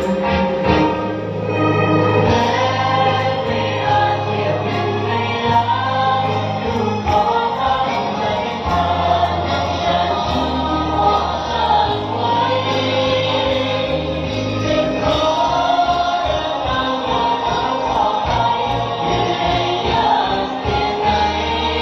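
Music: a Thai song with group singing over an instrumental backing with steady bass notes.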